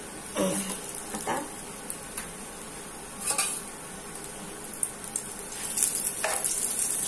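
Sago-coated potato cutlets shallow-frying in a pan, a steady sizzle that grows louder near the end as oil is spooned in around them. A few knocks and clinks of a steel spoon and bowl on the pan.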